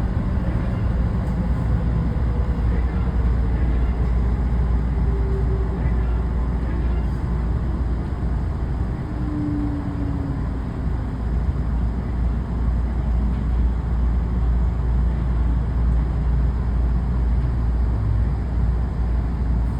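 Interior sound of a commuter train running and slowing toward a station: a steady low rumble of wheels on track, with a faint electric motor whine falling in pitch over the first ten seconds or so as it brakes.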